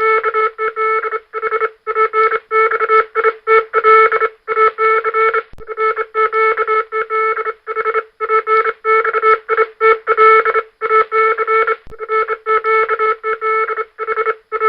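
Morse code sent as a keyed tone: a fast run of short and long beeps in groups split by brief pauses, over a light hiss.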